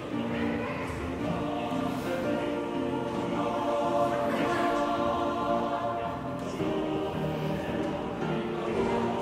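Music with a choir of sustained voices, the held chords shifting every second or so.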